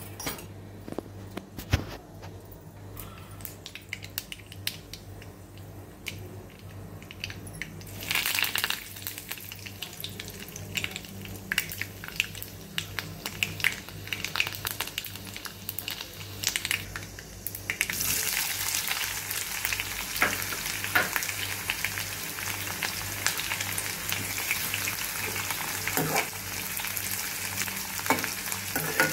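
Tempering in hot oil in an aluminium kadai: mustard seeds crackle with scattered pops, then a sudden burst of sizzling as curry leaves and garlic go in. About two-thirds through, a louder, steady sizzle begins as sliced onions are added and stirred with a metal ladle.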